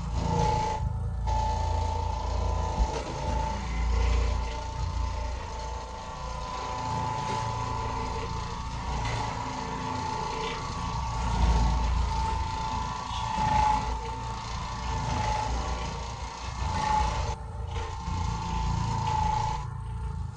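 Oreck Orbiter orbital floor machine running: a steady motor hum and whine as its pad scrubs carpet. The sound breaks off briefly twice near the end.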